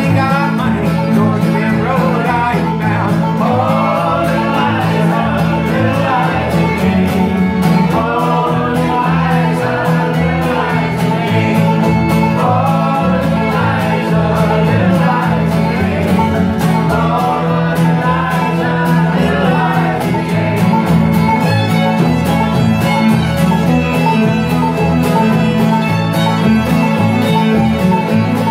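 Old-time string band playing live: acoustic guitar, upright bass, banjo, mandolin and fiddle at a steady bouncing tempo. A voice sings over it for about the first twenty seconds, then the fiddle takes the lead near the end.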